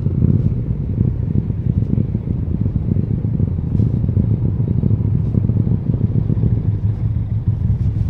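KTM 890 Duke R's parallel-twin engine running at low, steady revs, a deep pulsing rumble with no revving.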